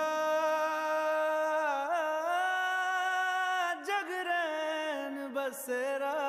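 A male voice sings the slow opening of a Hindi film song, drawing out long held notes with small ornamental turns and slides, almost without accompaniment.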